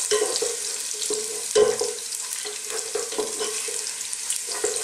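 Chopped garlic and ginger sizzling in hot oil in a cooking pot, while a wooden spoon stirs them and scrapes and knocks against the pot several times; the loudest knock comes about a second and a half in.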